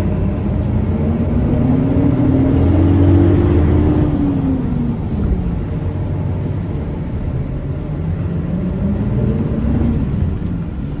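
Bus engine and road rumble heard from inside the cabin. The engine note rises over the first four seconds, falls away about five seconds in, and rises again a little near the end.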